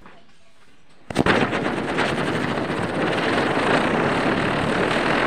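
Diwali ground fireworks catching from the burning matchstick chain: a sudden start about a second in, then a loud, steady hiss of spraying sparks with crackling.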